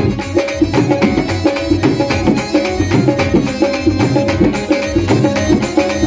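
Dhol drumming in a qawwali rhythm, quick repeated strokes, over music with held melodic notes.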